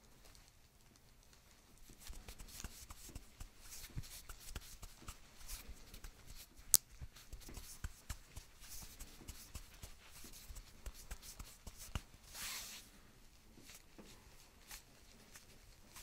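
Hands rubbing, sliding and pressing on shirt fabric over a patient's back close to the microphone. About two seconds in, a dense run of scratchy rustles and small clicks begins, with one sharp click a little before the middle and a longer swish near the end.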